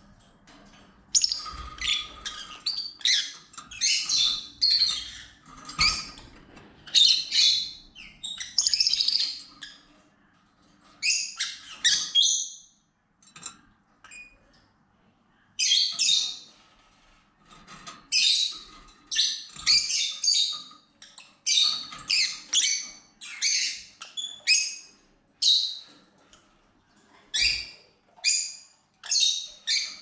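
Peach-faced lovebirds calling in runs of short, sharp, high-pitched chirps, with a brief lull around the middle.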